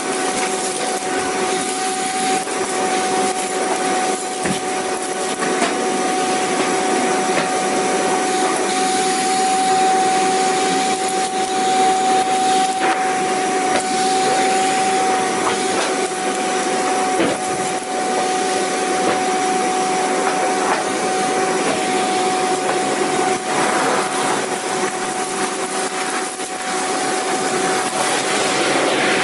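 Vacuum cleaner running steadily: its motor gives a constant whine over an even rush of air.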